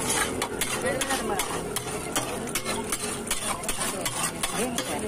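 Flat metal spatula scraping and chopping pav bhaji across a large flat iron griddle (tawa), in quick repeated scrapes and taps, over the sizzle of the bhaji cooking on the hot griddle.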